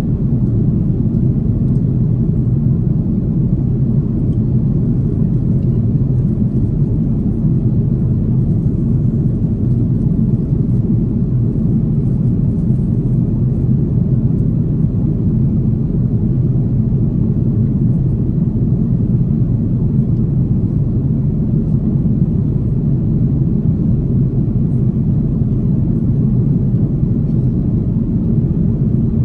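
Steady, even cabin noise of an Airbus A330neo airliner in flight, heard from a window seat: a low engine and airflow roar that does not change.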